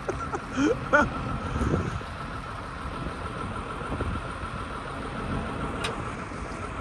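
An engine idling steadily under a constant thin whine, with a short burst of voices in the first second.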